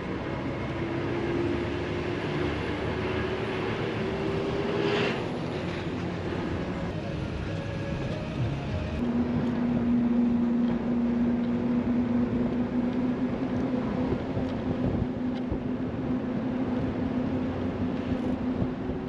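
Bus engine running, with road rumble under it. The engine note climbs slowly for the first five seconds, drops, and settles into a lower steady note from about nine seconds in.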